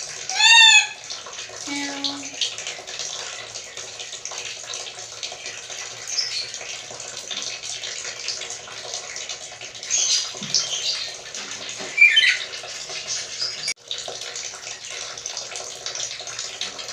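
Black-capped lory giving a loud meow-like call, the bird's imitation of a cat, about half a second in. A few shorter, higher calls follow later, over a steady hiss.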